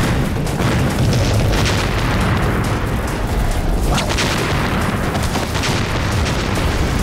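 Movie explosion sound effects: several booms in a row, laid over a dramatic music score.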